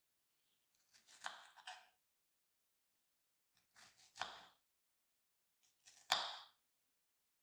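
A kitchen knife slicing strawberries on a wooden cutting board: three short cuts about two seconds apart, each ending in a tap of the blade on the board.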